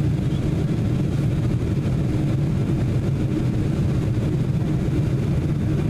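Boeing 747-400 cabin noise: a steady low drone of jet engines and rushing air heard from inside the cabin on approach.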